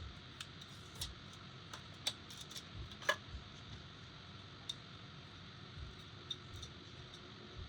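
Irregular light clicks and taps from small parts of an aluminium M.2 SSD heatsink being handled, about a dozen in all, with the sharpest click about three seconds in, over a faint steady hiss.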